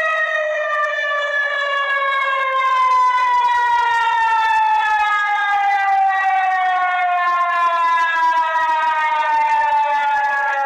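Civil defense siren wailing: one loud, sustained tone that glides slowly downward in pitch.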